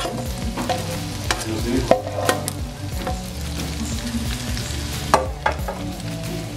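Beef, green pepper and onion frying with a steady sizzle in a skillet, with several sharp clinks and knocks of cookware as boiled diced potatoes are tipped in from a pot and the pan is handled.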